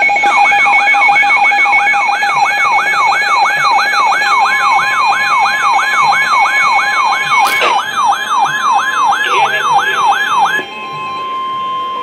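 Weather alert radios sounding their alarms for a severe thunderstorm warning: a siren-like sweep repeating about two and a half times a second over a steady high beep. About ten and a half seconds in, the sweeping alarm stops and a single steady tone carries on, the weather radio warning alert tone.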